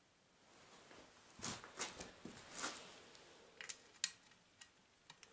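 Hands handling and fitting small screws onto a Huter BS-45 chainsaw muffler: a short stretch of scraping and rustling, then a few light clicks, the sharpest about four seconds in.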